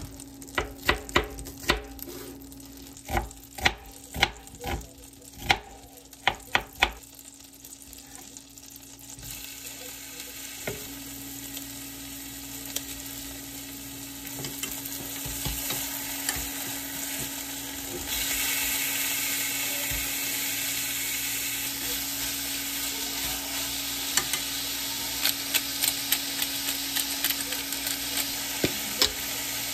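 About a dozen sharp knocks in the first seven seconds, then food sizzling in a frying pan. The sizzle builds and becomes louder about eighteen seconds in, over a faint steady hum.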